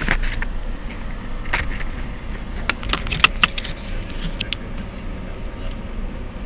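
Mercedes-Benz Citaro C2 Euro 6 city bus with its diesel engine idling at a stop, a steady low rumble. Scattered sharp clicks and rattles come over it, several in a cluster around the middle.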